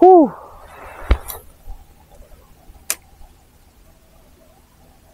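A man's short exclamation as he casts, its pitch rising then falling, followed by a sharp click about a second in and another near three seconds from the spinning rod and reel.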